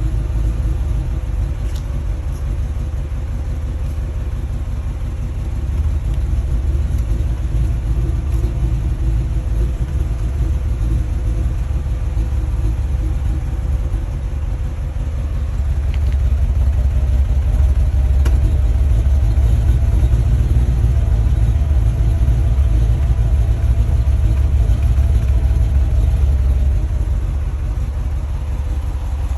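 Mercedes-Benz E55 AMG's supercharged 5.4-litre V8 running with a steady low rumble, somewhat louder in the second half. It has a rough idle and misfire logged as P0300, a random misfire across all cylinders.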